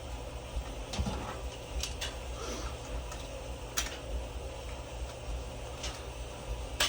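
A few short, sharp clicks and taps as a tirzepatide injector pen is worked apart by hand, over a steady low hum.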